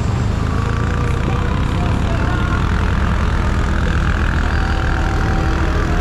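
CFMoto CForce 1000 quad's V-twin engine running steadily.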